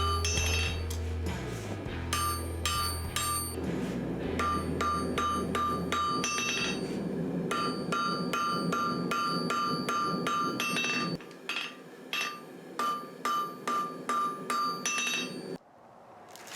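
Hand hammer striking hot steel on an anvil, about two to three blows a second, each blow ringing with a clear metallic tone. The blows come more spaced out in the second half and stop abruptly near the end.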